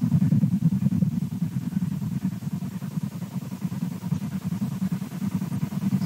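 A steady low hum that flutters rapidly, the 'waffling' sound.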